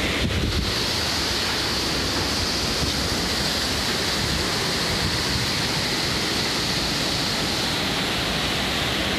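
Steady, dense hiss of hurricane wind and driving rain, unbroken throughout.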